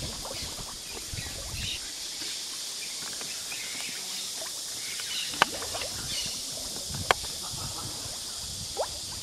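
Creek water sloshing against the side of a wooden boat as a pole stirs the water, with two sharp knocks about five and seven seconds in. A steady high hiss runs underneath.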